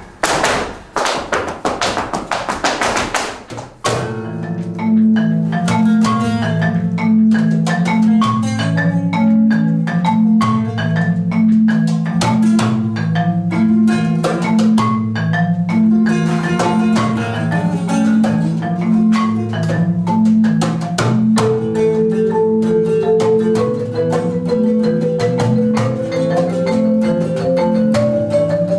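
Live acoustic flamenco ensemble music. A fast, dense flurry of percussive strikes fills the first few seconds, then a marimba takes up a repeating low-pitched pattern under guitar and sharp taps. About two-thirds of the way through, a higher held note climbs upward in steps.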